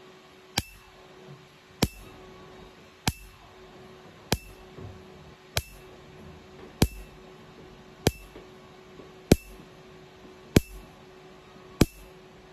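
QM-Q2 tattoo-removal laser firing single pulses, a sharp snap about every one and a quarter seconds as each shot hits the tattooed skin, over a steady low hum.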